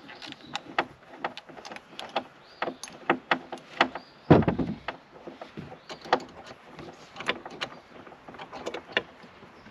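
Irregular clicking and tapping of hand tools and small parts against a boat's plastic helm console as it is unscrewed by hand. There is one heavy thump about four seconds in.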